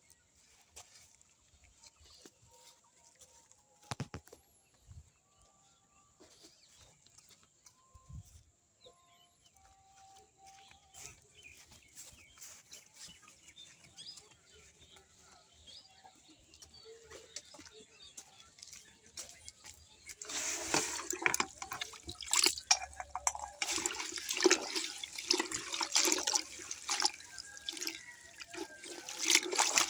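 A quiet stretch with a couple of faint knocks, then about two-thirds of the way in a much louder rush of splashing water sets in and keeps going.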